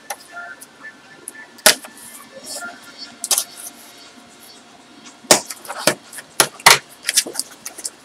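Hands opening a small cardboard box: picking and peeling off packing tape and pulling the flaps open, heard as scattered sharp scrapes and taps of cardboard that come more often in the second half.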